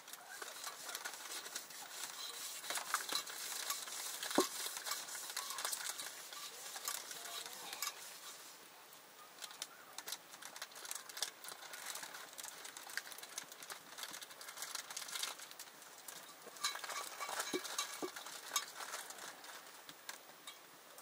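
Cooking sounds: utensils stirring, clinking and scraping in a pot, with irregular clicks and knocks over a faint hiss.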